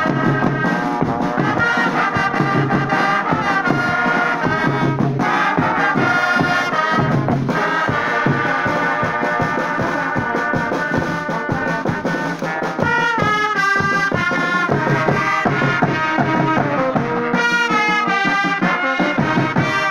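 Brass band playing, with several horns sounding a melody in sustained notes together.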